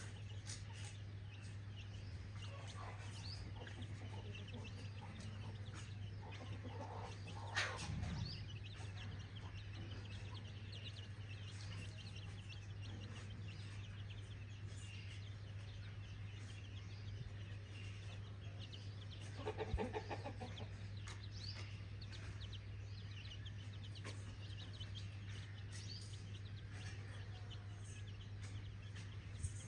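Free-range chickens clucking, with faint high chirps scattered throughout and a steady low hum underneath. There is a louder call about eight seconds in and a longer pitched call of about a second around twenty seconds in.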